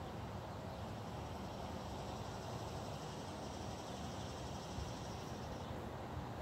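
Outdoor ambience: a steady low background rumble with a faint high, pulsing insect buzz that stops about five and a half seconds in.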